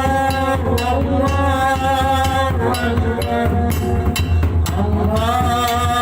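Background music: a held, gently bending melody line over a steady low drone and light percussion.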